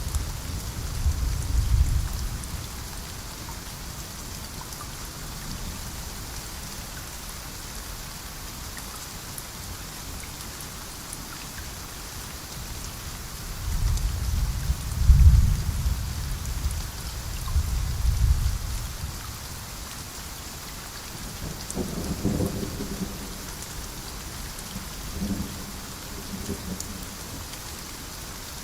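Steady heavy rain hiss with thunder rumbling low, once near the start and again in a longer roll in the middle. Two short low-pitched sounds come near the end.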